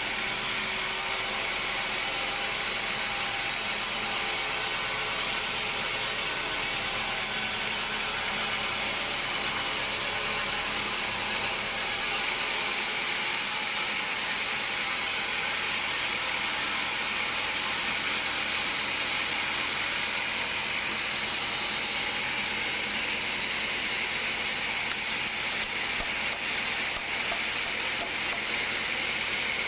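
Sawmill machinery running steadily, a constant hissing noise with no distinct strokes.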